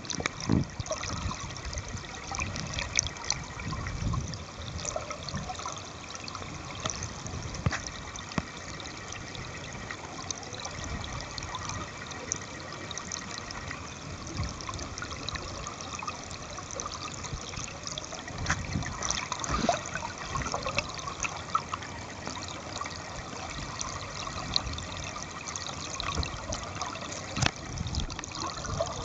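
Stream water flowing over rocks, recorded with the camera submerged: a steady, muffled rushing and trickling, with scattered small clicks and a few dull knocks.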